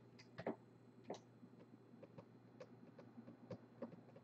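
Faint, irregular clicks and taps, a few louder ones about half a second, one second and three and a half seconds in, over quiet room tone.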